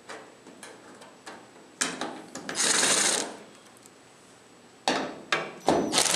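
Cordless drill/driver running in short bursts as it backs out the T30 Torx screws holding the fuel filler housing to the pickup bed: one run of about a second near two seconds in and two shorter runs near the end, with light clicks of handling before.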